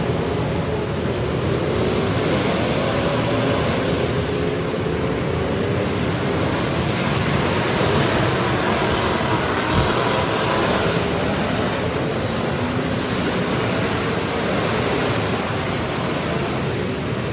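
Demolition derby cars' engines running and revving together, their pitch wavering up and down over a dense roar, with a single sharp crunch of impact about ten seconds in.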